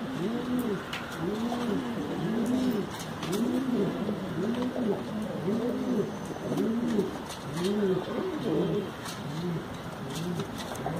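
Domestic pigeon cooing in courtship display, a continuous run of rising-and-falling coos, about one to two a second.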